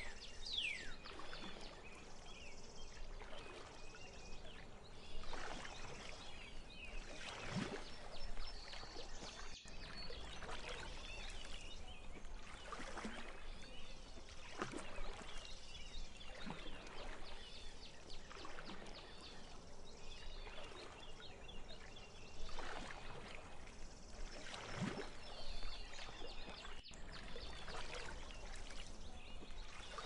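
Small waves lapping and splashing among reeds at a lake's edge, a soft splash every second or two, with faint bird twittering high above it throughout.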